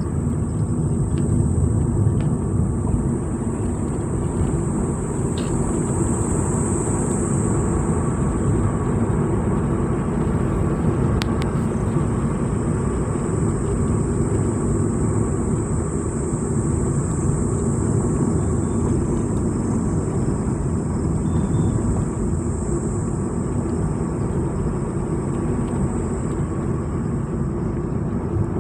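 A vehicle on the move: steady engine and road rumble with no pauses, and a thin steady high hiss above it.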